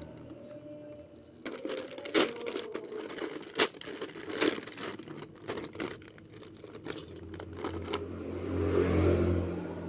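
Irregular crackling and clicking, starting about a second and a half in and dying away after about eight seconds.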